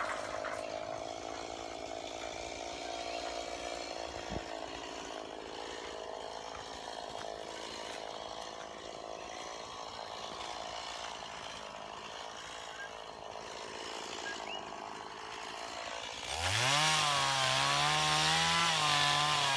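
Two-stroke chainsaw running quietly, then revved hard about 16 seconds in. Its pitch rises, holds with a slight wobble as the chain cuts, and falls off near the end.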